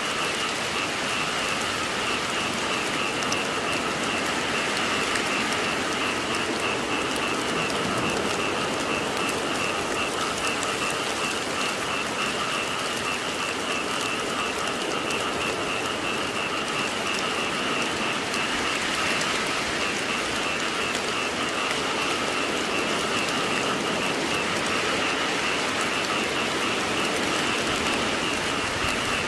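Steady rain falling, with frogs calling in a continuous high chorus that runs under it.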